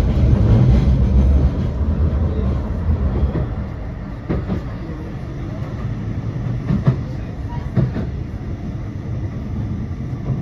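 Tram running on its rails, heard from inside the car: a loud low rumble that eases after about three seconds, with a few sharp knocks from the wheels later on.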